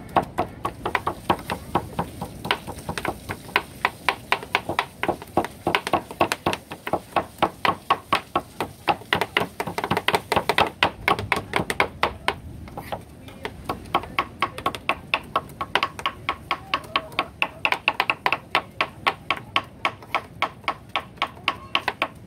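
Two knives chopping raw tuna meat on plastic cutting boards: rapid, sharp knocks several times a second, with a short pause a little past halfway.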